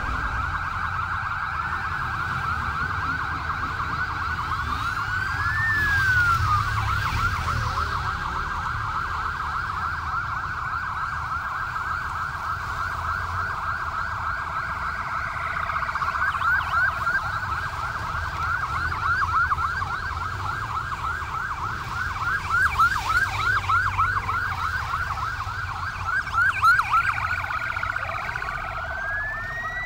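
Several police vehicle sirens sounding at once, with overlapping wails and rapid yelp sweeps over the low rumble of vehicle engines.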